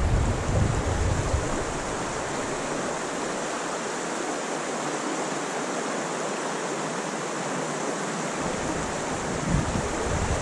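Creek water rushing steadily. Gusty wind buffets the microphone with a low rumble in the first second or so and again near the end.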